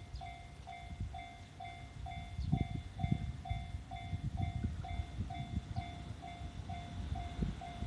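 Japanese level-crossing warning bell ringing, an electronic ding repeating evenly about twice a second. Under it, a low rumble builds from a few seconds in as an E531-series electric train approaches the crossing.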